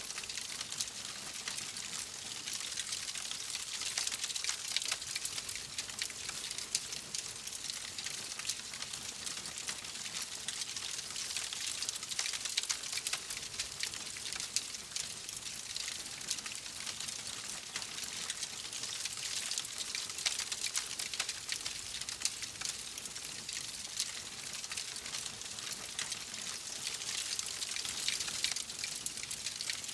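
Log fire crackling, with a dense run of small snaps and pops over a steady hiss.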